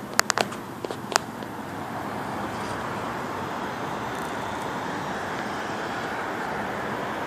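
A few sharp clicks in the first second or so, then steady street traffic noise that grows a little louder about two seconds in.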